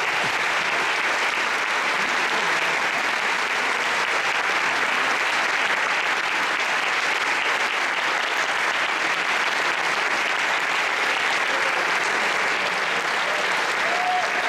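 Audience applause: many people clapping steadily, a dense even patter of hands.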